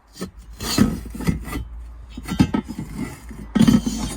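Hands handling and knocking hard car parts: irregular clicks, knocks and rubbing scrapes, the loudest knock cluster near the end.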